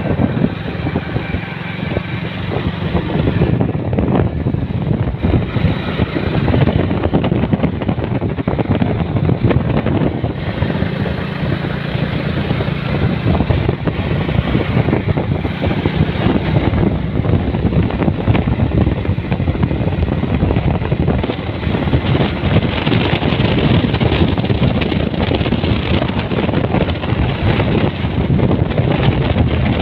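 Hero commuter motorcycle's single-cylinder engine running steadily at cruising speed, heard from the rider's seat through steady wind buffeting on the microphone.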